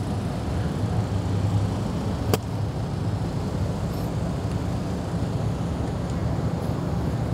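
Steady low rumble of road traffic, with a single sharp click about two seconds in.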